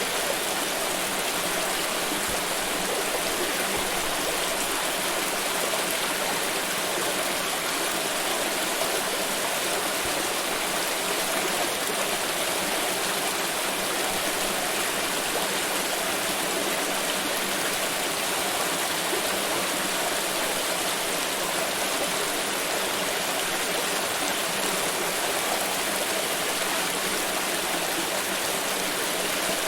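Flowing stream water, a steady rushing babble with no breaks or changes.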